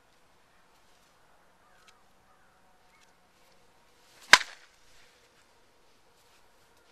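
A baseball bat striking a pitched ball once: a single sharp crack a little over four seconds in.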